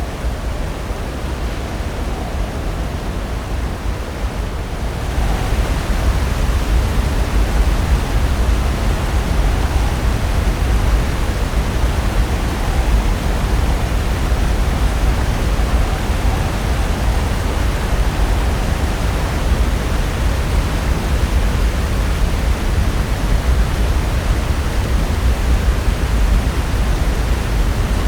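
Pacific Ocean surf breaking on the shore, a steady wash of noise that grows louder and fuller about five seconds in.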